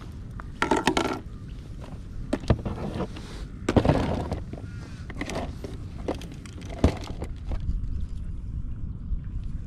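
Irregular knocks and clatter of gear being handled on a kayak, with louder scraping bursts about one second and four seconds in and a sharp knock near the end, over a steady low rumble.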